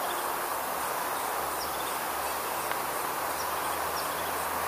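Steady outdoor background noise, with a few faint, short high chirps of birds scattered through it.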